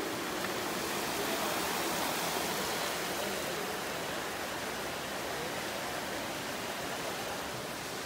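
Water gushing from several spouts and splashing into a pool: a steady rushing splash.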